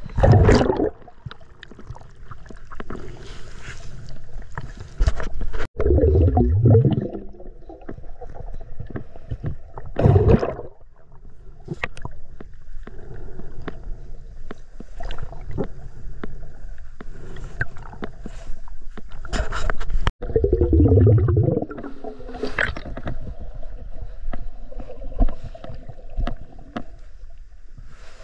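Water gurgling and sloshing, heard through a camera held underwater. It comes in loud bursts every few seconds, some sliding down in pitch.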